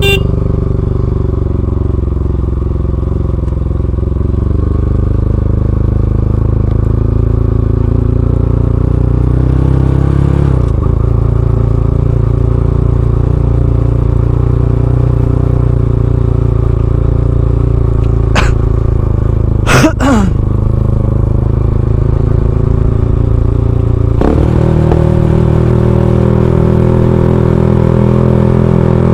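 Bajaj Pulsar NS200's single-cylinder engine running through an Akrapovic full-system exhaust, with the motorcycle under way. The engine note shifts in pitch about ten seconds in and again near the end as the revs change. A few brief sharp sounds come a little past the middle.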